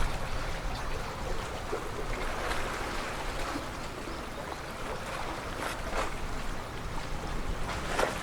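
Seaside ambience: wind buffeting the microphone over the sound of sea water, with a few brief splashes or knocks.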